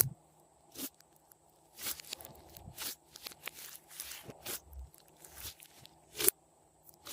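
Hands squishing and kneading glossy slime, making irregular sticky clicks and crackling pops as air pockets burst, with one louder pop about six seconds in.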